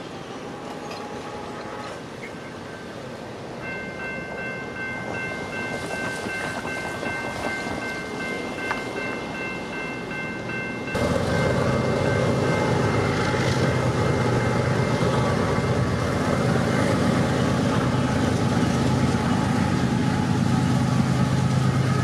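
A train horn holds one long, steady chord from about four seconds in until a cut about halfway through. After the cut, BNSF diesel freight locomotives approach with a steady low engine rumble that grows louder as they near.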